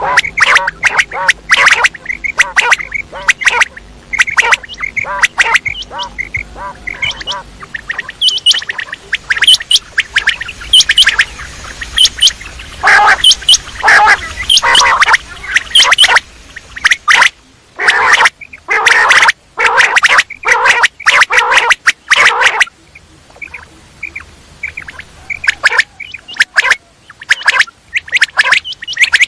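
Quail calling: dense runs of short, sharp repeated notes, with a thicker cluster of calls in the middle.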